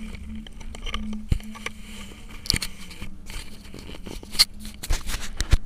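Handling noise of a hand-held phone moving down into a concrete inspection pit: irregular rustles, scrapes and knocks, with a few sharp knocks near the end.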